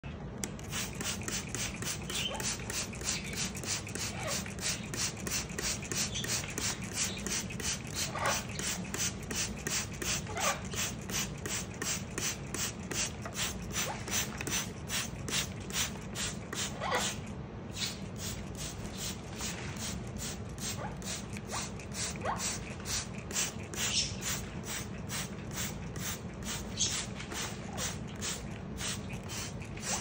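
Hand-held trigger spray bottle misting a blue-fronted Amazon parrot, squirting in a quick steady rhythm of about three sprays a second. A few brief calls from the parrot come in between the sprays.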